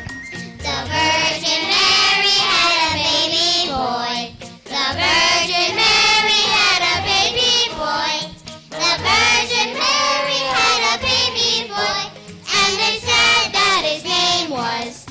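Children singing a song together with musical accompaniment, in phrases with short breaks about four, eight and twelve seconds in.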